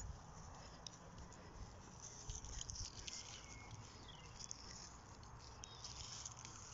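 Quiet outdoor ambience of someone walking over grass: a low rumble of wind and handling on the phone microphone, with faint soft steps and a few faint high chirps.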